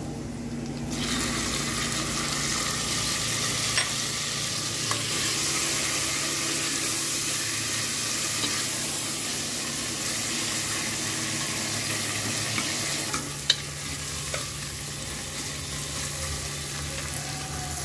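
Chopped tomatoes sizzling in hot oil with crushed garlic, onion, green chilli and ginger in a pressure cooker, stirred with a steel ladle that clicks against the pot now and then. The sizzle flares up about a second in as the tomatoes hit the oil, and eases a little in the last few seconds.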